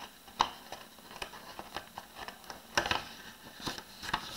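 Sheets of printer paper being handled and turned over: light rustling with a few sharp snaps of the paper, the loudest about half a second in and again near three seconds.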